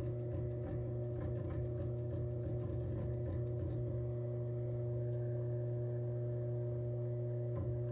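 A brand-new WD Purple 8TB hard drive giving off a constant, very loud drone, like a very loud fan, with a few faint ticks in the first few seconds. The drone is abnormal for a new drive and is being recorded to return it as faulty.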